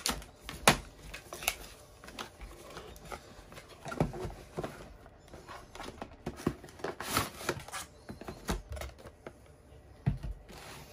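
A cardboard retail box being opened by hand, with the flap tugged open and a clear plastic packaging tray slid out, giving irregular clicks, scrapes and rustles of cardboard and plastic.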